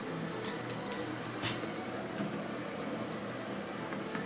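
Quiet room ambience with a steady low hiss and a few faint light clicks scattered through it.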